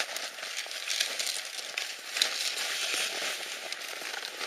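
Crackling, rustling noise close to the microphone, dotted with short sharp clicks.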